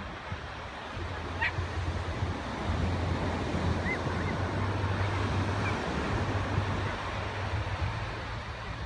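Sea surf washing onto a sandy beach, the wash swelling about a second in and easing near the end, with wind rumbling on the microphone.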